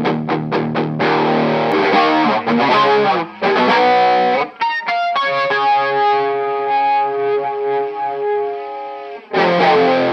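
Electric guitar played through a Nobels CHO mini chorus/flanger pedal. It opens with a few short chord stabs and a riff, then lets one long chord ring from about halfway through, and starts playing again near the end.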